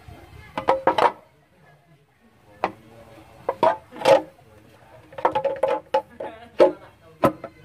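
Aluminium rocker cover of a Mitsubishi 4D34 diesel being set back onto the cylinder head: a series of sharp metallic clanks and knocks in several bunches, some ringing briefly.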